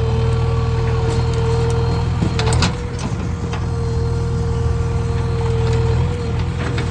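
JCB 3DX backhoe loader's diesel engine running steadily, with a steady whine over it. About two and a half seconds in there are a few sharp cracks of wood breaking, with lighter snaps near the end, as a tree is torn out.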